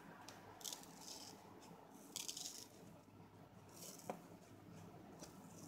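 Faint scratchy tearing of a dish sponge's foam as fingers rip pieces off it, in several short rasps, the longest about two seconds in.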